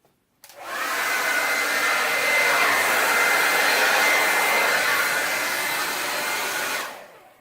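Hand-held hot-air blower running steadily, warming poured resin, with a faint steady whine over the rushing air. It starts about half a second in and winds down near the end.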